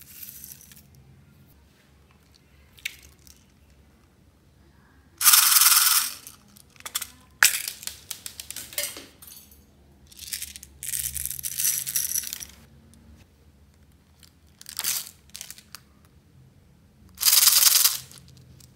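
Small plastic beads and sequins rattling and pouring out of plastic toy compact cases into a glass bowl, in several bursts of one to two seconds, with scattered clicks of the cases being handled between them.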